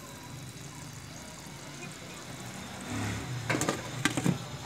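Glass pot lid being set onto a metal cooking pot, clinking and clattering several times near the end, over a steady background hiss.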